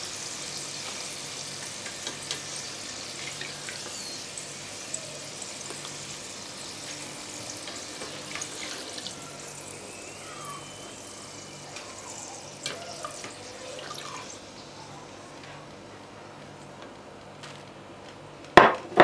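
Hot vegetable oil sizzling in a multicooker bowl as fries are scooped out with a plastic slotted skimmer, with scattered light clicks of the skimmer. The sizzle thins out and fades over the second half as the bowl empties, and a sharp knock comes near the end.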